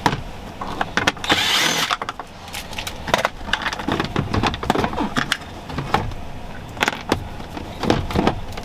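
Cordless drill-driver running in one short burst about a second in, its motor whine rising and falling, followed by a string of sharp plastic clicks and knocks from working the dash trim around the instrument cluster.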